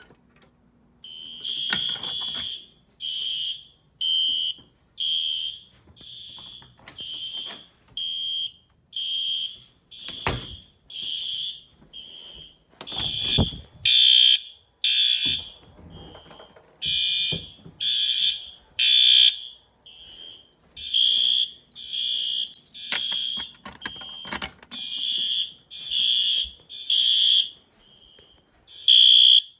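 Fire alarm system in alarm: electronic fire alarm horns sounding a pulsed high tone about once a second, set off from a manual pull station. A couple of dull knocks sound between the pulses partway through.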